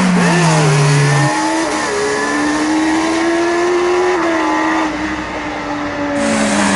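Racing car engines running hard around a circuit: one falls in pitch over the first second or so as it goes by, another climbs slowly in pitch with a couple of small steps, and another falls in pitch near the end.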